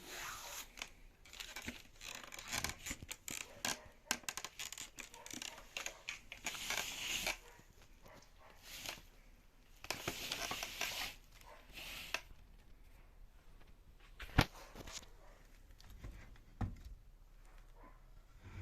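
Material being torn and rustled in several bursts, with a single sharp knock about fourteen seconds in.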